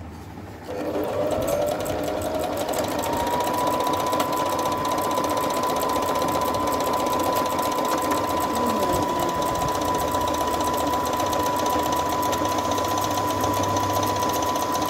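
Brother LX27NT home sewing machine stitching at a steady speed. Its motor starts about a second in, whines up in pitch over the next two seconds and then holds one steady tone over the rapid clatter of the needle.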